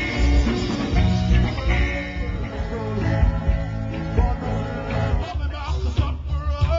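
Live band playing upbeat music with saxophones, drums and bass, and a singer on microphone. Sharp rhythmic hits come near the end.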